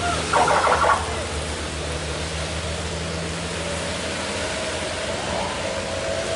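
Steady hiss of rain and tyres on a flooded road with a low engine hum from passing vehicles. A short, loud burst of sound comes about half a second in.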